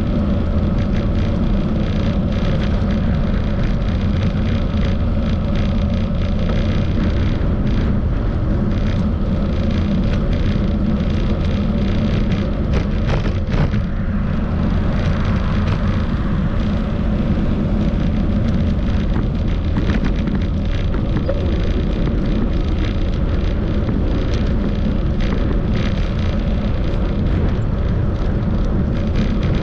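Steady wind and road rumble on the microphone of a bicycle-mounted camera while riding, with scattered light knocks from the bike going over bumps.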